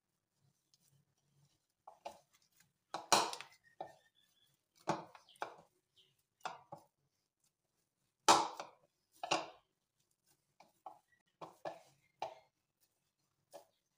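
A hand squeezing and mixing grated carrot with powder into a dough in a white bowl: irregular scrapes and knocks of fingers against the bowl, the two loudest about three and eight seconds in, one followed by a brief ringing of the bowl.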